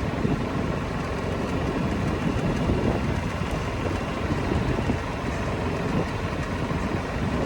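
Small vehicle being driven: steady motor and tyre noise.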